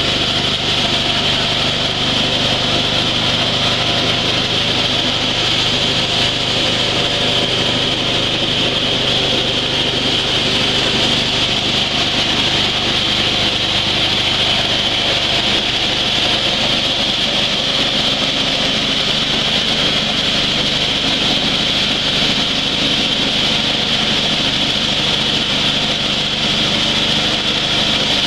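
Dry-coffee huller machine running steadily.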